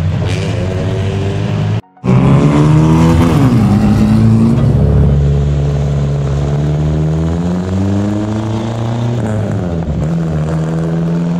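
Vehicle engine running, its pitch falling and rising as the throttle is worked. There is a brief break in the sound about two seconds in.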